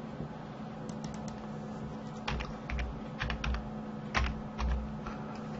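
Typing on a computer keyboard: a few faint clicks about a second in, then a run of about ten keystrokes, typing a short word, over a steady low hum.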